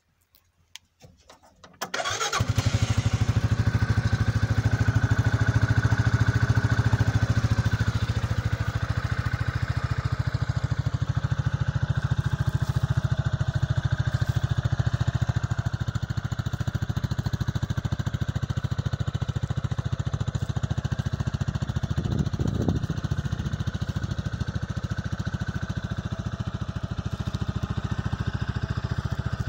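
Renli 500cc buggy's engine starting up about two seconds in, then running at a steady idle.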